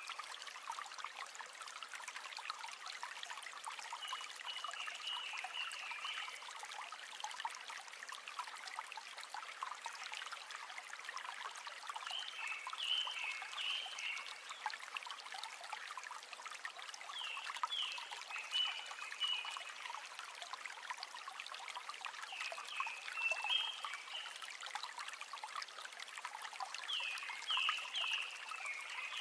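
River water running and trickling steadily. Short high chirping calls from a small animal come in brief phrases about every five seconds.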